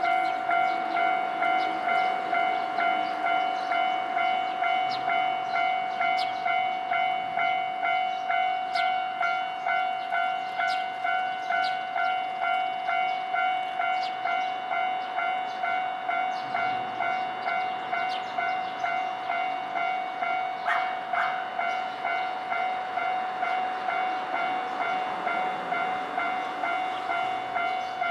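Japanese railway level-crossing warning bell ringing its electronic ding over and over at a steady pace, about one and a half strokes a second: the crossing is closed for an oncoming train. Scattered sharp clicks sound over it.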